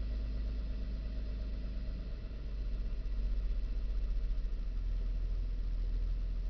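2000 Nissan Xterra's engine idling roughly, heard inside the cabin as an uneven low rumble that gets a little louder and more unsteady about halfway through. The owner believes the idle RPM is not quite right.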